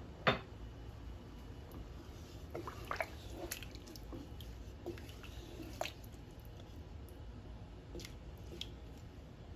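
Wooden spatula stirring soaked basmati rice through mutton broth in a pot: soft, scattered sloshes and drips of liquid. A short knock sounds just after the start.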